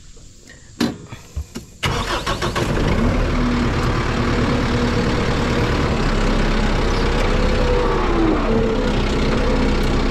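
A few sharp clicks, then the Kubota M6060 tractor's diesel engine starts suddenly about two seconds in and settles into a steady idle.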